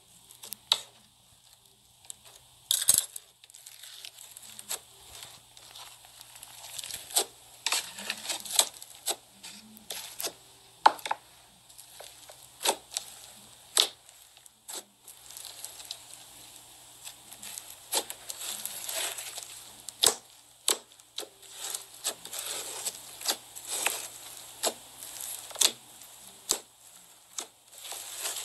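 Hands squeezing, pressing and pulling apart a thick brown slime, giving many irregular sticky crackles, pops and tearing snaps.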